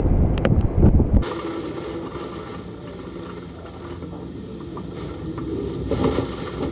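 Strong hurricane wind buffeting the microphone for about the first second, then it cuts off abruptly to a quieter steady low hum with faint ticks.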